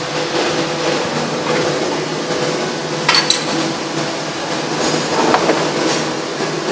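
Plastic injection moulding machine running with a steady hum, with a sharp metallic clank about three seconds in and lighter knocks a couple of seconds later.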